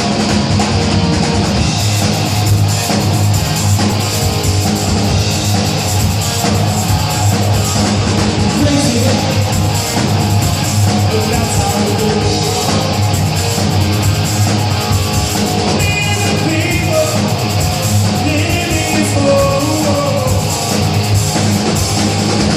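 Hard rock music with distorted electric guitar, playing loud and steady.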